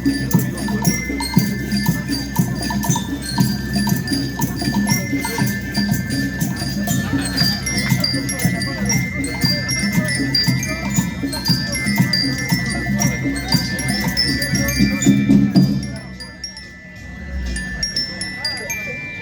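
School rhythm band playing: metal bar bells of the glockenspiel kind ring out many short chiming notes over steady drumming. The drums stop about 16 seconds in, leaving the bells ringing more sparsely.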